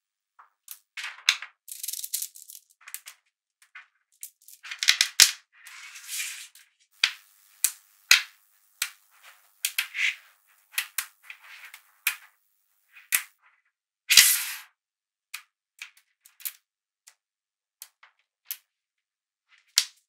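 Small magnetic balls clicking and rattling together as they are handled: scattered sharp snaps and short clattering runs, with quiet gaps between them.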